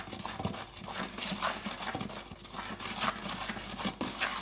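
Wooden stick stirring a thick soap paste in a plastic bucket, knocking and scraping against the bucket's sides in an irregular run of knocks.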